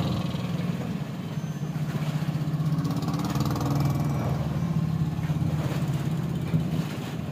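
A large engine idling steadily, a low, even engine note.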